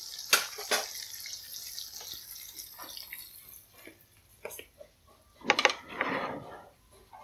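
Hot oil sizzling steadily around slices of tofu frying in a pan, with two sharp clicks of a metal spatula in the first second. The sizzling stops about halfway through, and a short clatter of knocks follows near the end.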